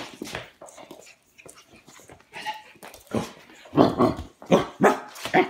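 Pug puppy growling in play, a run of short, loud growling bursts in the second half.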